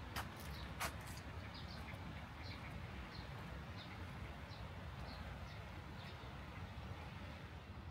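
Small bird chirping: short high chirps repeating every half second or so over a steady low rumble. Two sharp clicks come about a second in, the second the loudest sound.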